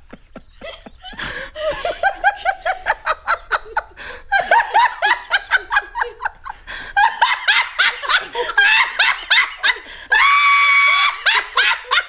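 A woman laughing uncontrollably in rapid, high-pitched bursts, with one long held shriek of laughter about ten seconds in.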